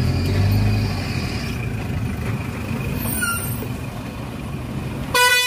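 Steady low rumble of motor vehicles, then a loud vehicle horn blast starts suddenly near the end.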